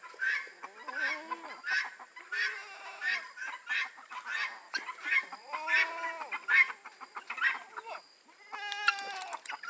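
Farm poultry, chickens among them, clucking and squawking in many short calls, with a couple of longer drawn-out calls about six and nine seconds in: a flock clamouring at feed time.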